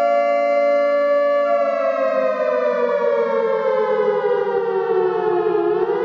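Civil defense siren sounding a steady multi-tone wail, then winding down in pitch from about a second and a half in, and starting to rise again near the end.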